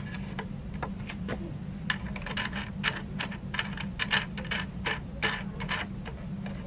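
Hands tightening the angle-locking fitting on a wooden tabletop box easel: an irregular run of small clicks and knocks, busiest in the middle, over a steady low hum.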